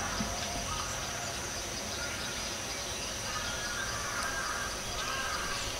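Outdoor rural ambience: faint scattered bird calls over a steady background hiss and a thin, steady high tone.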